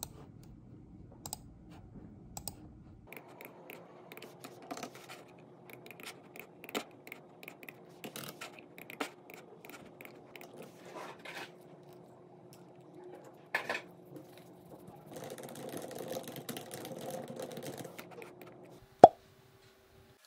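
Typing on a low-profile computer keyboard, with mouse clicks: irregular light keystrokes over a faint steady hum. Near the end comes a single sharp knock, the loudest sound, then silence.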